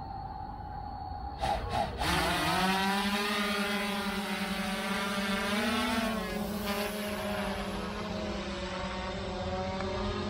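DJI Mavic Air quadcopter's motors spinning up about two seconds in, then running with a steady propeller hum that rises briefly in pitch near six seconds. Before the spin-up there is a steady tone and a few clicks.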